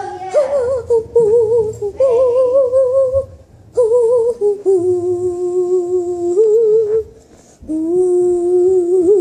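A young girl humming a wordless tune in long held notes with a slight wobble. Several phrases are broken by short pauses, and the pitch steps down and back up between notes.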